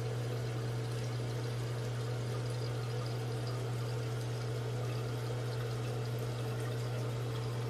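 New toilet fill valve running, water rushing steadily into the flush tank as it refills.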